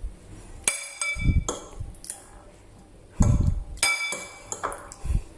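A utensil clinking against a plate and dish several times, each strike leaving a short high ring, with some dull knocks from dishes being handled.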